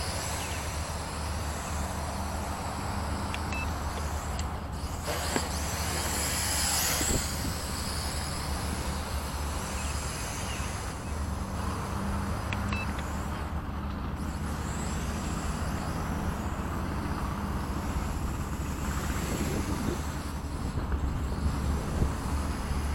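Wind buffeting the microphone in a breeze of about 15 mph: a steady, flickering low rumble under an even rushing hiss.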